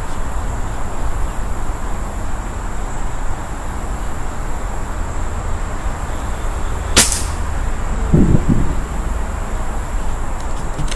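An air rifle fires a single shot about seven seconds in, a sharp crack, followed a second later by a brief lower thud. A steady faint high-pitched tone runs in the background.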